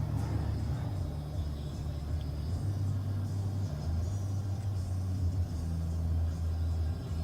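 Steady low rumble and hum inside a car cabin, with deep tones that shift in pitch every second or so.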